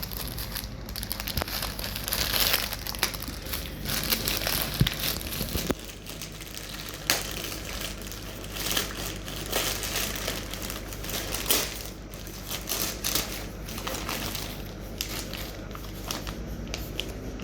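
Packaging crinkling and rustling as it is handled and unwrapped by hand, in irregular bursts of crackle.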